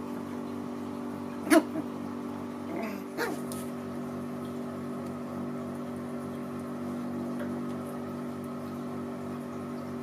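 Puppy yipping: one sharp, loud yap about one and a half seconds in, then a couple of smaller yelps near three seconds, over a steady low hum.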